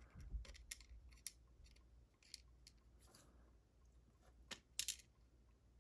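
Faint, scattered small clicks and ticks of a disassembled Corbin Master Ring lock cylinder's metal parts being handled, a few seconds apart.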